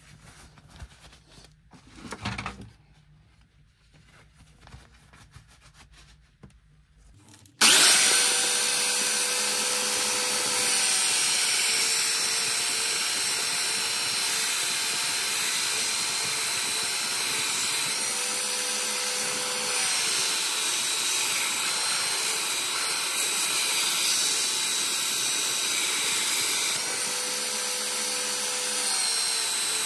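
After a few faint handling knocks, an 800 W Einhell TC-BS 8038 belt sander switches on suddenly about seven and a half seconds in and runs steadily with a whine and a hiss of the sanding belt, grinding the edge onto a steel blade. Its note dips briefly three times.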